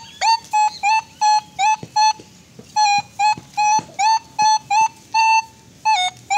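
Metal detector set to field mode at 40 kHz, its coil swept over a pit, giving a run of short, clear beeps at one pitch, some sliding up into the note, about three a second, with a brief pause about two seconds in. The beeps signal a metal target in the ground.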